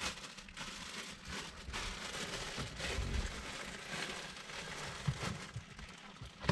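Clear plastic pastry bag crinkling and a cardboard pastry box rustling as the food is handled, with a couple of soft knocks near the end.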